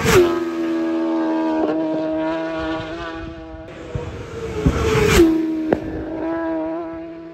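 Two racing motorcycles pass at full speed, one right at the start and another about five seconds later. Each goes by with a sharp drop in pitch, then its engine holds a steady note as it pulls away.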